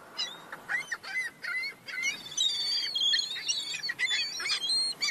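A group of downy seabird chicks peeping: many short, high, rapid calls overlapping one another, busiest about halfway through.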